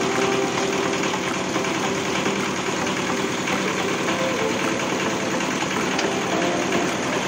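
Small air-cooled petrol engine idling steadily, with a fast, even firing beat.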